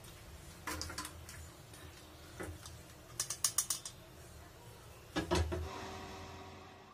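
Clinks and knocks of kitchen utensils: a few separate knocks, then a quick rattling run of about seven clicks, and a last knock that leaves a short ringing tone dying away.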